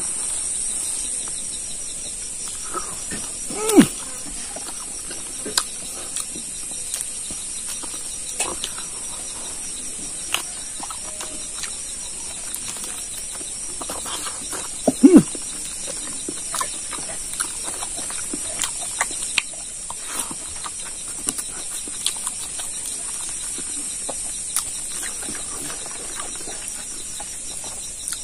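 Close-up mouth sounds of eating pig trotter by hand: chewing, lip-smacking and sucking meat off the bone, in scattered short smacks and clicks. Two louder, brief sounds falling in pitch come about 4 seconds in and about halfway through. A steady high-pitched insect drone runs underneath.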